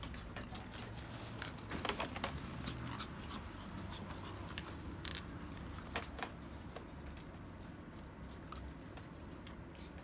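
Chihuahuas scampering: a light patter of paws and clicking claws, with scattered sharp taps and a cluster of them about two seconds in.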